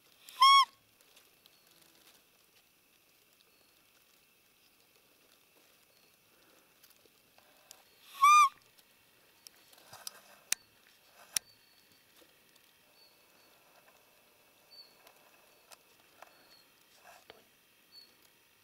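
Hunter's roe deer call blown twice: two short, high peeps about eight seconds apart, imitating a doe's squeak to draw in a rutting buck.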